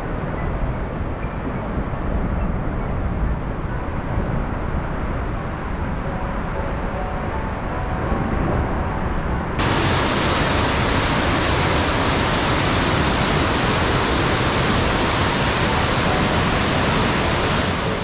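Steady roar of a waterfall, a dense rushing hiss of falling water. About halfway through it jumps abruptly to a louder, brighter rush of water.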